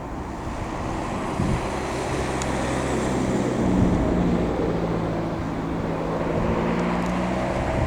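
Steady low rumble of an airliner cabin at cruise altitude, the jet engines and rushing airflow heard from inside, with a few steady low hums.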